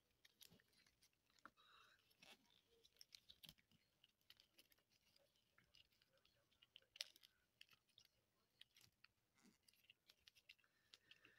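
Faint, scattered clicks and small handling noises of a plastic wrestling action figure as its removable jacket is worked off, with one sharper click about seven seconds in.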